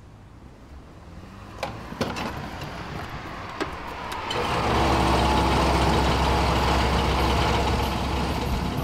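A car engine, with a few small clicks before it. About four seconds in it comes in and then runs steadily with a low rumble.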